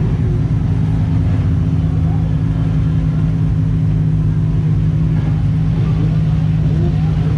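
A drift car's engine revs up and down as it slides around the lot, heard further off over a loud, steady low engine drone close by.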